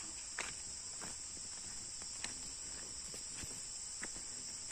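Steady high-pitched chorus of insects in the forest, with a few scattered faint ticks over it.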